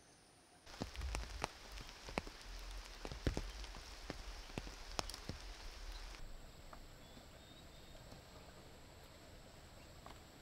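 Hands picking leafy greens in a vegetable bed: close rustling of leaves with a quick string of sharp snaps of stems for about five seconds. After that, a faint steady insect chorus in the background.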